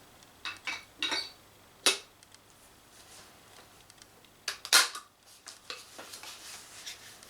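A few short clicks, clinks and knocks from handling and loading a B&T GL-06 airsoft grenade launcher, with a sharp click about two seconds in and the loudest knock near the middle.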